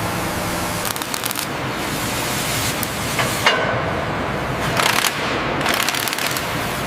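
Steady industrial machinery noise with a few short bursts of clattering and crackling.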